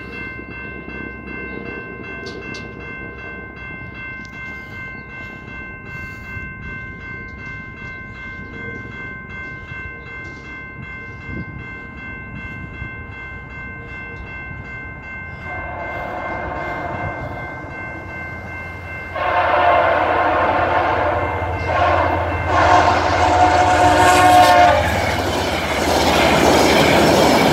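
A railway crossing bell rings steadily and rapidly while the crossing lights flash and the gates are down. Later a VIA Rail passenger train's horn sounds as the train approaches, faint at first and then loud in several long blasts. Near the end the train passes over the crossing.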